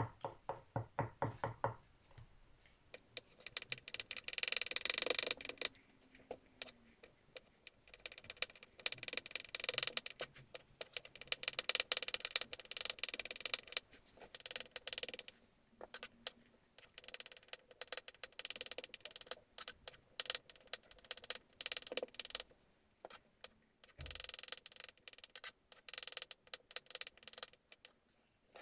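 Kitchen knife chopping peeled hard-boiled eggs on a wooden cutting board: rapid runs of knocks as the blade hits the board, with short pauses between the runs.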